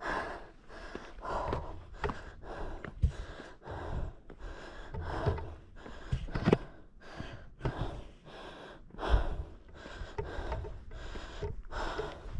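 A hiker breathing hard on a steep summit climb: quick, heavy breaths about one a second, with low thumps on the microphone.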